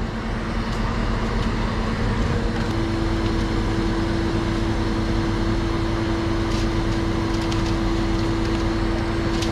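Truck-mounted hydraulic knuckle-boom crane working, its engine and hydraulic pump giving a steady drone that builds over the first two seconds. About three seconds in a steady higher whine joins it and holds.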